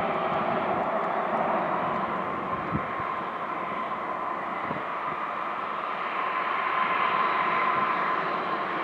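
Jet airliner taxiing: steady engine noise with a held whine that grows a little stronger toward the end.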